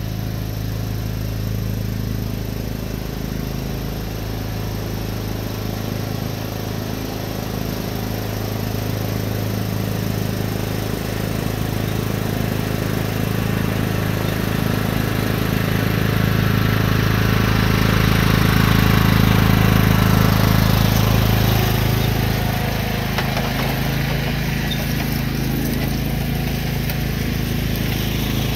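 Riding lawn tractor's engine running steadily while towing a lawn aerator. It grows louder as the tractor comes near, loudest about two-thirds of the way through, then eases off a little as it moves away.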